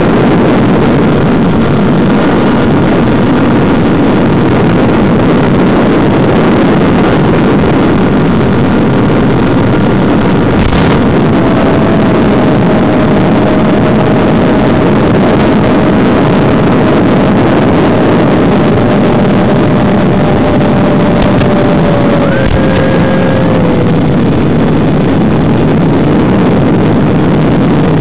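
Steady, loud rushing drone of an electric RC plane's motor, propeller and airflow, picked up by the onboard FPV camera's microphone in flight, with a faint steady tone that slowly sinks a little in pitch midway.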